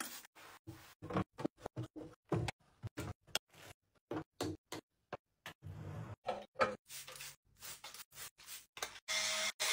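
Plastic organizer trays and small toiletries being set down and shifted in a drawer: a quick, irregular run of light clacks and taps. Near the end, a trigger spray bottle spritzing with a short hiss.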